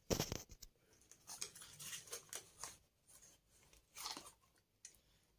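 Small cardboard product box being opened and handled by hand: a sharp click at the start, then scattered faint rustles, scrapes and little tearing sounds from the flaps and packaging, with a louder rustle about four seconds in.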